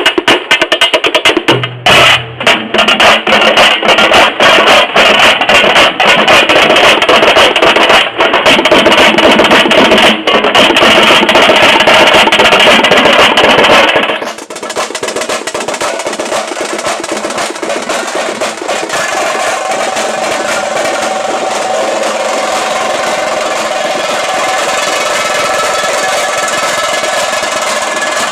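Tamte frame drums beaten with sticks in a loud, fast, continuous roll. About halfway through the loud drumming drops away suddenly, and a softer, steadier drumming continues.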